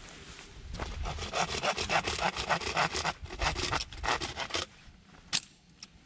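Hand saw cutting wood in quick, even back-and-forth strokes that stop after a few seconds, followed by a single sharp knock.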